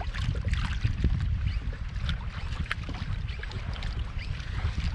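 Wind buffeting the microphone in a steady low rumble, with water lapping and splashing irregularly against a kayak's hull.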